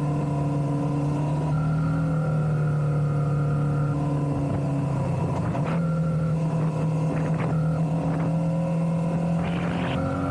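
Parallel-twin motorcycle engine running at a steady, even pitch under constant throttle, heard from on the bike.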